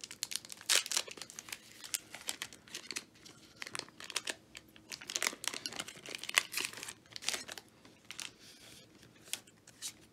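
Foil wrapper of a Pokémon trading card booster pack crinkling and tearing as it is ripped open by hand, in many sharp crackles that thin out in the last couple of seconds.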